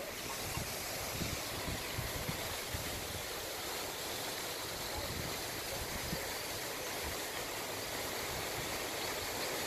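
Steady rushing wind noise on the microphone, with uneven low buffeting from the gusts.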